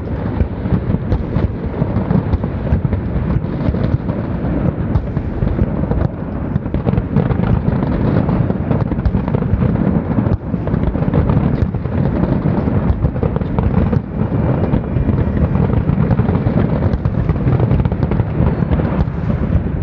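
Aerial fireworks going off in a dense, unbroken barrage of overlapping bangs and crackles.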